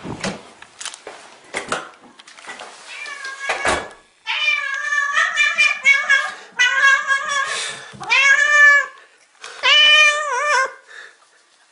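A domestic cat meowing loudly and repeatedly: a run of long, drawn-out meows, some arching up and down in pitch, starting about four seconds in as it greets its returning owner. Before the meowing, a few clicks and knocks.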